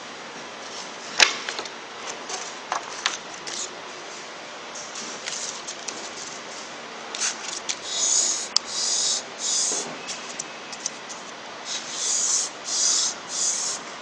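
Cloth rubbed over a vacuum pump's graphite vane, making short hissing wiping strokes in two runs of about three, around eight and twelve seconds in. There is a sharp click about a second in.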